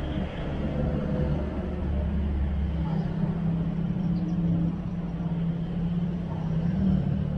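Road traffic on a city street: the engines of cars and vans running with a low, steady rumble.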